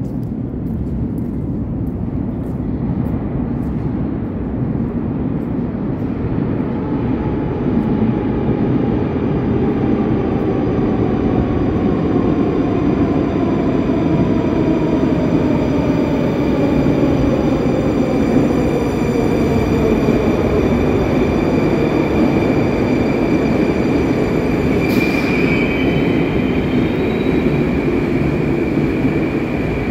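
Moscow metro train arriving at a station platform: rumble of the wheels and running gear builds as it enters, while the electric traction motors' whine glides down in pitch as it brakes to a stop. About 25 seconds in there is a short hiss, then a steady high tone as the train stands.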